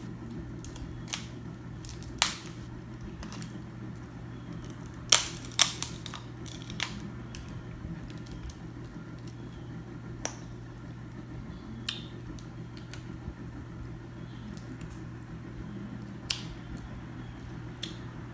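Scattered sharp cracks and clicks of snow crab leg shells being broken open with a hand tool, the loudest about two and five seconds in, over a steady low hum.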